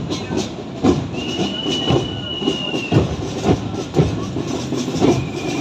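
Noise of a marching crowd on a street, with repeated low thumps roughly twice a second. A steady high-pitched tone starts about a second in and holds for about two seconds; a shorter one sounds near the end.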